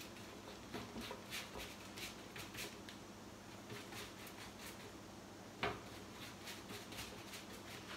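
Faint, soft repeated strokes of a silicone pastry brush spreading olive oil over thin rolled dough on parchment paper, with one sharper click about five and a half seconds in.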